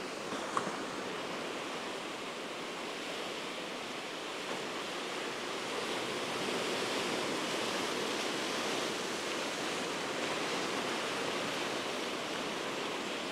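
Ocean surf washing over and breaking around shoreline rocks: a steady rushing noise that swells a little about halfway through.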